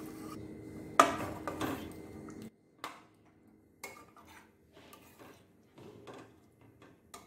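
Boiled chickpeas poured into a kadai of frying masala: a sharp clatter of the pot against the pan about a second in over a steady sizzle that cuts off suddenly. Then a steel spoon stirring the chickpeas, with scattered clinks and scrapes against the kadai.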